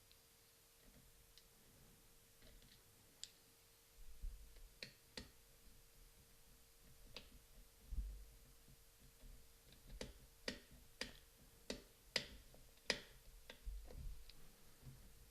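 Faint clicks and light taps of small screws being driven into the Lomokino's plastic lens housing and parts being handled, with a quick run of about six sharp clicks in the second half and a few dull bumps.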